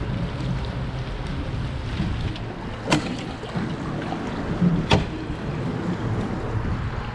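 Steady wind and water noise on a small fibreglass boat, broken by two sharp knocks about two seconds apart as a deck hatch lid over a water-filled compartment is opened and shut.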